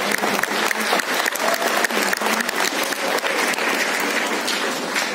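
Audience applauding in a theatre hall: many hands clapping densely and steadily.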